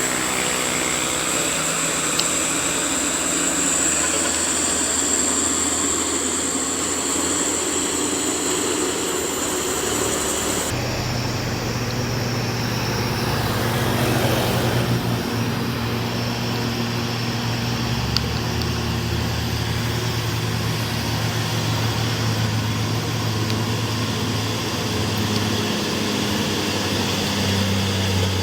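Heavy diesel truck engines running steadily on a steep uphill climb, with traffic noise. The sound changes abruptly about a third of the way through.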